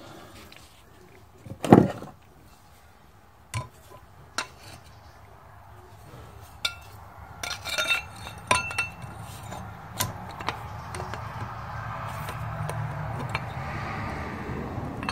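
Sharp metallic clinks and knocks of valve-train parts and a steel pipe being handled on a cylinder head during valve reassembly, scattered and irregular, the loudest about two seconds in. A low hum swells over the last few seconds.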